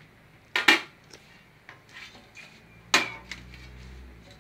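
Metal cookware clanking as a pan lid is lifted off and pots are handled. There are two loud, ringing clanks, one just over half a second in and one about three seconds in, with lighter knocks between them.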